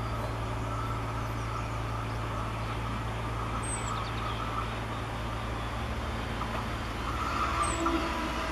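Red regional electric multiple-unit train approaching along the track, its running noise growing louder over the last second and a half, over a steady low hum. A bird chirps briefly twice.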